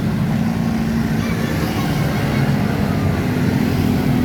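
Tour bus engine running close by, a steady low drone with traffic noise and no telolet horn sounding.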